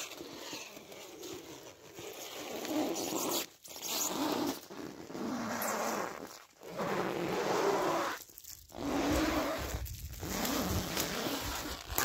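Plastic stretch film being pulled off its hand roll and stretched around a frame of tree branches, in several long noisy pulls with short breaks between them.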